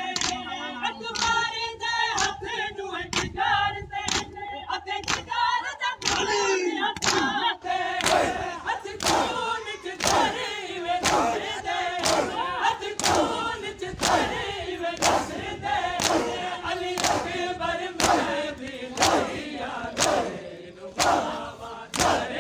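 Crowd of Shia mourners doing matam, slapping their chests in unison to a steady beat while men's voices chant a lament (noha) over them. The slaps grow stronger and more regular after several seconds.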